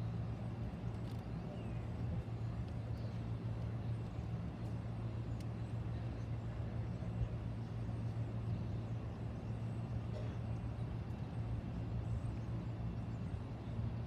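Steady low hum over quiet open-air ambience, with no music playing.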